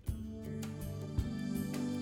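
Background music with sustained, held notes.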